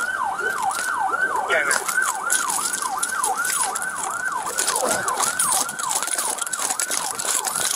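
Police car siren on fast yelp, its pitch sweeping quickly over and over at about three cycles a second, with rustling and clicks from the body camera moving.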